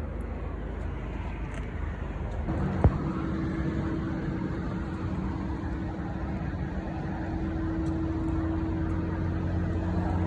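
Steady low mechanical hum. A steady droning tone joins it about two and a half seconds in, with a single sharp knock just after.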